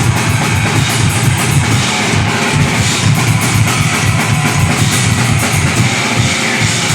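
Deathgrind band playing live: fast, dense drum kit with bass drum under guitar, loud and unbroken.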